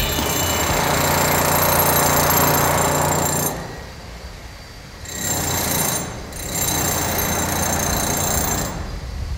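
Rough mechanical rattle of heavy construction machinery running. It drops away for about a second around three and a half seconds in, dips again briefly near six seconds, and returns each time.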